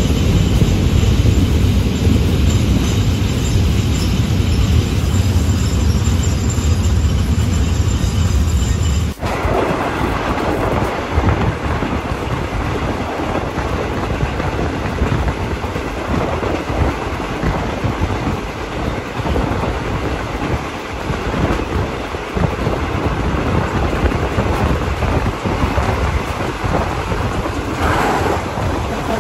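Third-class passenger carriage of a moving train heard from inside: a steady running rumble with wheels clacking over the rail joints. About nine seconds in, the sound changes abruptly from a deep rumble to a lighter, noisier clatter.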